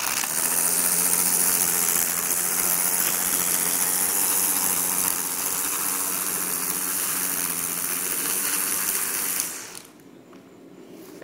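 Ryobi 24V cordless electric string trimmer running, its electric motor humming under the hiss of the spinning line cutting grass along a lawn edge. The trimmer stops near the end.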